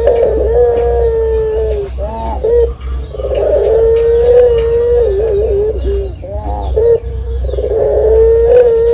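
Collared dove cooing: three long held coos, each lasting a second and a half to two seconds, separated by shorter wavering notes.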